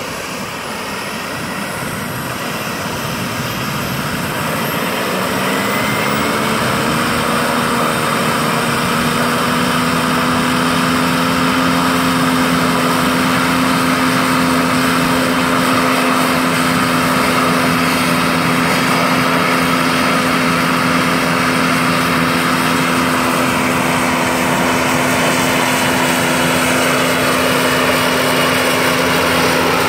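Turbine-powered Vario scale model helicopter spooling up: the model turbine whines while the main rotor's pitched hum rises and grows louder over the first several seconds, then holds at a steady flight speed.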